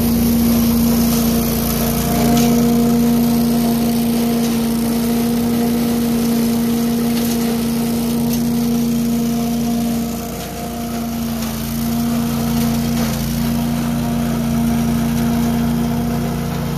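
Billy Goat debris vacuum loader's 18 hp V-twin Vanguard engine running steadily under load, with the rush of air and leaves being sucked up the hose into the impeller. The sound sags briefly about ten seconds in, then picks up again.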